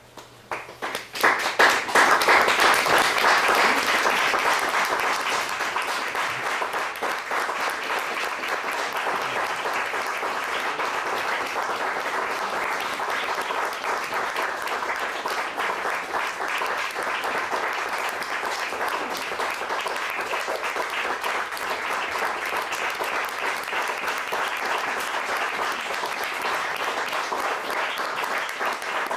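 Audience applauding: a few scattered claps, then the applause swells in about a second and a half in, peaks briefly and settles into steady clapping.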